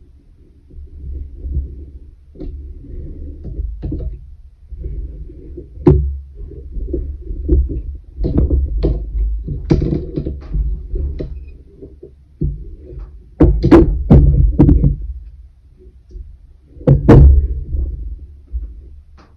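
Handling noise from weaving on a wooden pin loom: irregular dull knocks, rubbing and low rumbling as a long weaving needle is worked through the yarn, with a few sharper knocks among them.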